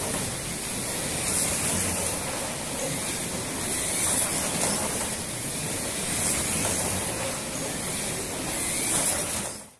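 NSR Porsche 997 GT3 slot cars running on a multi-lane track, a steady hissing whine of their electric motors that swells every couple of seconds as cars pass down the straight. It cuts off suddenly at the very end.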